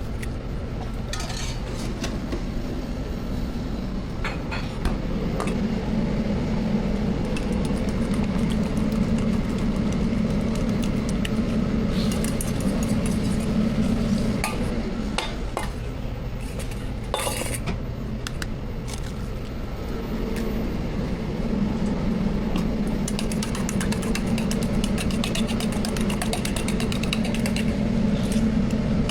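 Metal utensils clinking and scraping against cookware: many sharp clicks, with a dense run about two-thirds of the way through, over a steady low hum.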